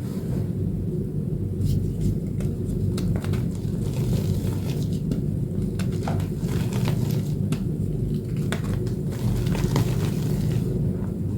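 Blue chalk reformed with corn starch paste being crushed and crumbled by hand: scattered small crackles and crunches over a steady low rumble.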